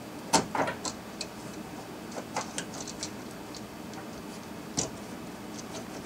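Scattered small plastic clicks and taps from gloved hands working the fittings on top of a car's fuel pump module, pulling off the plastic protective caps. The sharpest click comes just after the start and another about five seconds in.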